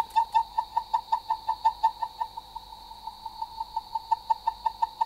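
Rapid electronic beeping at one pitch, about five short beeps a second in an even rhythm, over a faint steady high whine.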